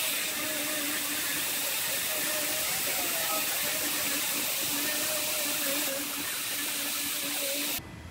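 Pneumatic right-angle die grinder with a surface-conditioning disc running steadily, hissing air as it sands the black coating off the edge of a new steel frame rail section down to bare metal. The sound stops suddenly near the end.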